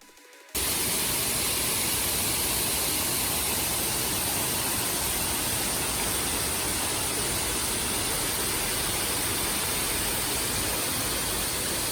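Steady rush of a waterfall, an even wash of noise with no changes, starting abruptly about half a second in.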